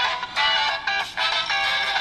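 Recorded music playing from a phone's small speaker, sounding thin with almost no bass.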